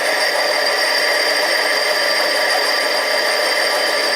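Harbor Freight 7x10 mini lathe running steadily: an even, high-pitched whine from its motor and gear train over a mechanical hum.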